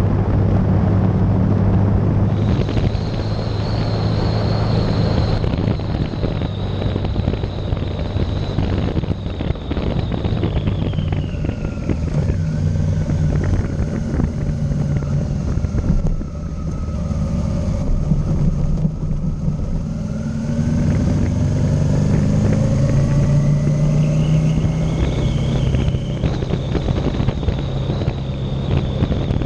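Motorcycle engine running under way with wind rushing over the microphone. The engine note eases off about ten seconds in and climbs again past the twenty-second mark as the bike speeds back up.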